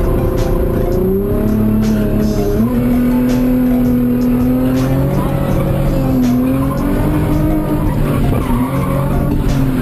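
A car engine held at high revs, its pitch rising and falling, with tires squealing as the car slides.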